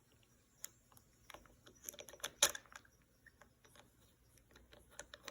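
Small plastic toy figures and toy chairs clicking and tapping against each other as they are handled: a scatter of light clicks, the loudest about two and a half seconds in.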